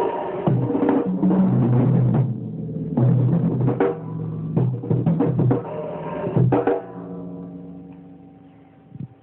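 Acoustic drum kit being played, bass drum and snare strikes in quick patterns, stopping about two-thirds of the way in and ringing out to a fade. The sound is dull and thin, recorded on a mobile phone.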